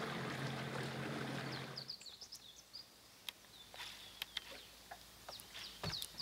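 Steady low hum of a bass boat's bow-mounted electric trolling motor, which cuts off about two seconds in. Quiet lakeside air follows, with scattered short bird chirps.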